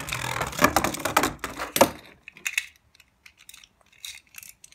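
A Beyblade Burst spinning top whirling and rattling on the hard plastic floor of a Beystadium, a dense clatter of small clicks that dies away about two seconds in. A few scattered plastic clicks follow.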